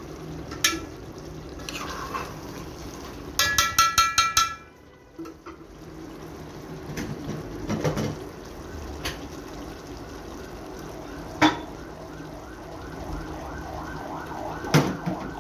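A cooking utensil knocking and scraping against a large cooking pot as the food is stirred and fresh ingredients are tipped in. About three and a half seconds in comes a short loud run of squeaky, ringing scrapes, and scattered single knocks on the pot follow.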